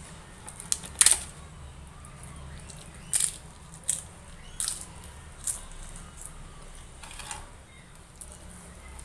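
Close-up eating sounds: wet mouth clicks and smacks while chewing a handful of rice and curry, about half a dozen sharp clicks spread out, the loudest about a second in, over a low steady hum.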